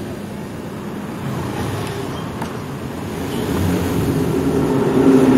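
Road traffic noise: a steady engine rumble from motor vehicles, with one engine growing louder over the last second or so.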